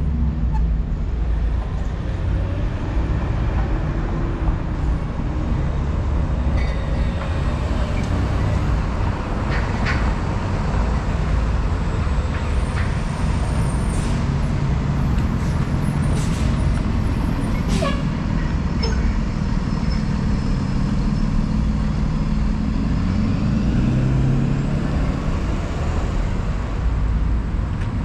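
City street traffic at an intersection: cars and other vehicles passing and turning close by, a steady low rumble of engines and tyres, with a few brief clicks and squeaks around the middle.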